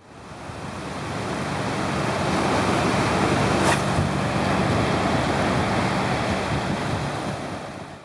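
Ocean surf washing on a beach with wind on the microphone, fading in and out, with one short click about three and a half seconds in.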